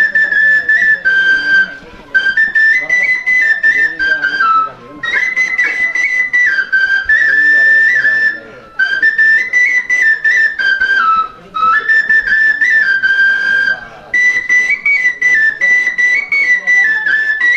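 Bansuri flute playing a melody in phrases of two to three seconds, the high notes stepping up and down, with brief pauses between phrases.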